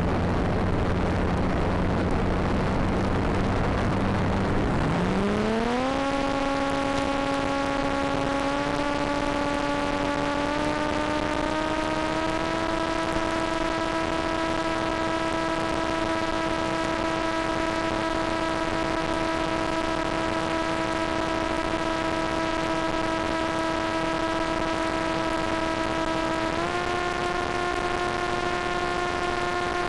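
Stock electric motor and propeller of a Volantex Ranger EX RC plane in flight. A low hum while the plane glides on idle throttle, then the motor spins up about five seconds in to a steady whine that climbs in a few small steps, with another step up near the end. Heard over a constant hiss.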